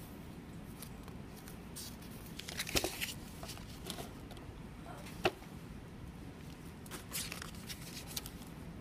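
Paper rustling and handling noise as a lined paper notebook is set down on a desk and its pages are turned, with a cluster of rustles about two and a half seconds in, a sharp tap a little after five seconds, and more rustling near the end.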